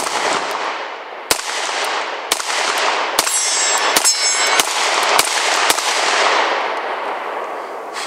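Taurus PT909 9mm pistol firing a string of about nine shots, roughly one every half second to a second, with the echoes of each shot filling the gaps and dying away near the end. A brief metallic ringing comes in about three seconds in.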